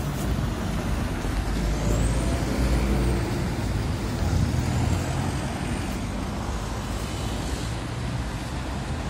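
Steady low rumble of road traffic and a Konstal 105N tram standing at a stop. A faint high whine rises and falls twice.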